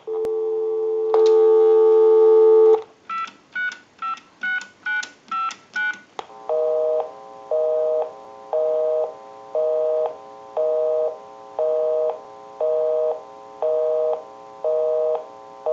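Payphone line audio: a steady dial tone, then a quick string of touch-tone keypad beeps as a number is dialled, then a busy signal beeping on and off about once a second, because the number called is engaged.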